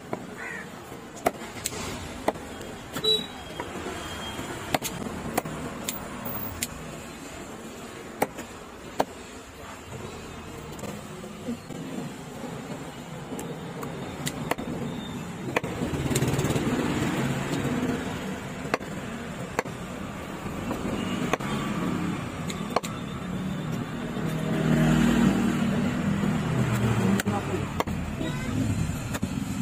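Heavy knife chopping fish on a wooden log chopping block: sharp knocks about every second or two, over steady street traffic noise that grows louder in the second half.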